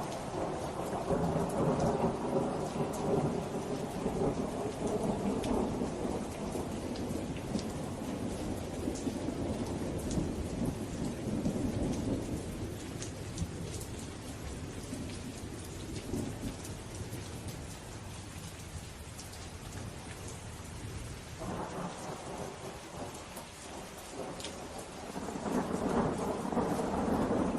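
Steady rain with scattered drop ticks, under rolling thunder: a long rumble at the start that dies away over about ten seconds, and another that builds from about three-quarters of the way through.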